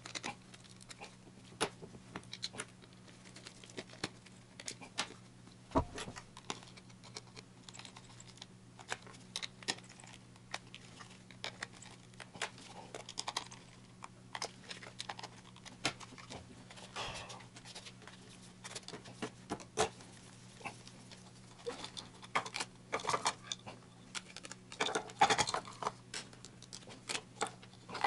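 Hands handling and fitting together the plastic housing and cable reel of a ClineFinder temperature probe: scattered light clicks, taps and rattles of plastic parts and screws, busier and louder in the last few seconds.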